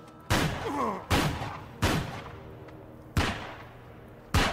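Five gunshots from a handgun, fired about a second or so apart, each a sharp crack trailing off in a short echo.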